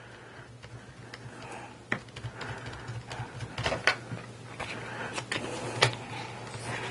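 Irregular light clicks and taps of hands handling an RC car's plastic parts and fitting a wheel onto its rear hub, over a steady low hum.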